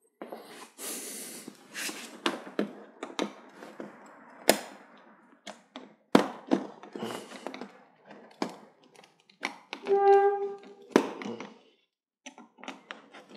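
Plastic snap-in clips of a TV's bezel frame clicking and snapping loose as the frame is prised outward away from the panel, with plastic scraping between the clicks. About ten seconds in, the plastic gives a short high squeak.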